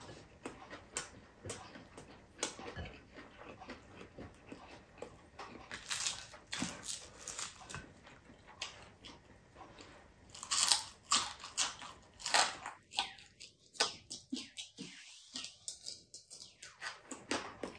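Close-up chewing and crunching of crispy fried milkfish with rice, a string of small crunches with a few louder bites about six, eleven and twelve seconds in.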